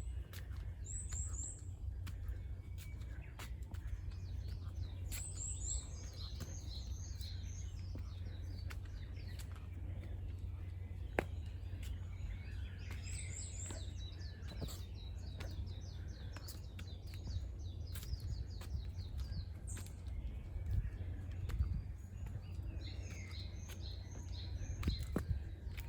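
Small forest birds chirping and twittering, with a few quick runs of high chirps, over a steady low rumble.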